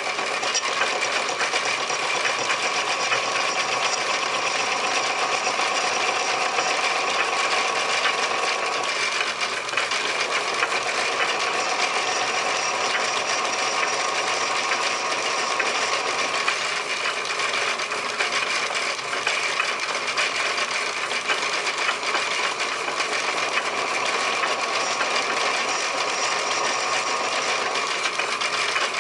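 Metal lathe running steadily, turning a cast brass piston, with a constant machine whine. The tone shifts about nine seconds in.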